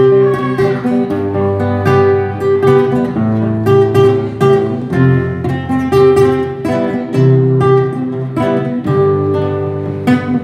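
Instrumental break of a live forró-style song: strummed acoustic guitar over a steady bass line, with no singing.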